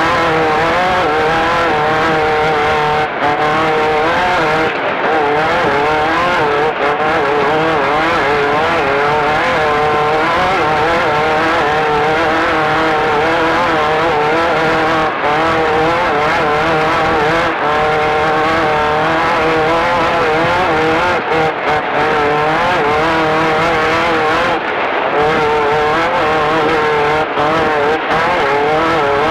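Air-cooled 1600 cc Volkswagen flat-four engine of a Class 5-1600 off-road race car running hard, its pitch rising and falling with the throttle. The engine note briefly dips several times.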